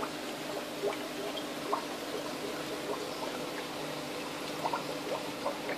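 Aquarium air stone bubbling, with short bubble pops scattered irregularly over a steady low hum.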